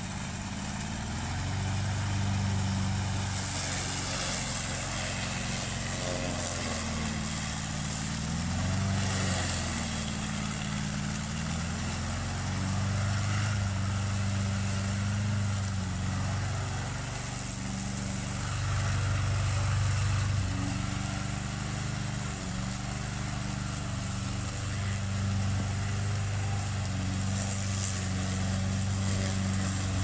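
The Black Shark 800 remote-control slope mower's 764 cc two-cylinder gasoline engine running steadily while it mows, its pitch dipping and recovering several times as the load changes.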